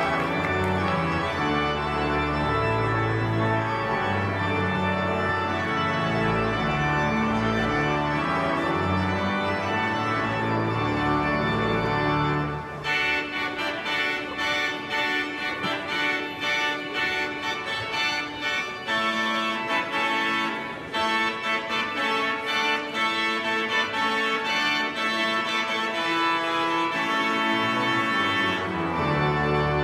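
Symphony Hall Birmingham's Klais pipe organ playing full sustained chords over deep pedal bass. About twelve seconds in the bass drops away and the playing turns to quicker, detached notes higher up. The full sound with pedal bass returns near the end.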